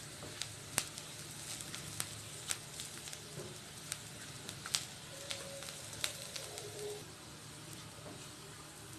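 Chopped onion, ginger-garlic paste and spices frying gently in mustard oil in a metal kadai while being stirred with a spatula, as the tempering is browned. A low, steady sizzle with scattered sharp clicks about every half second to a second.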